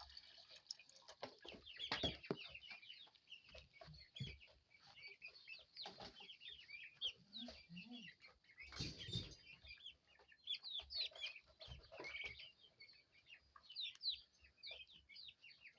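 Brood of young chickens peeping and chirping, a dense run of short high calls, with a few brief knocks and rustles among them.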